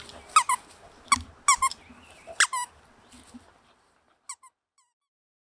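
Dog chewing a squeaky avocado-shaped toy, setting off a quick run of short, high squeaks, then two faint squeaks a little after four seconds in.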